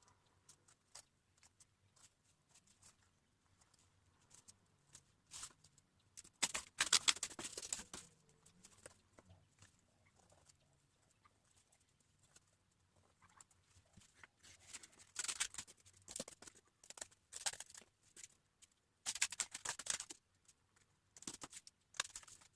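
Cardboard being worked by hand: scattered light taps and rustles, with a few short scraping or tearing bursts about a second long, the loudest a few seconds in.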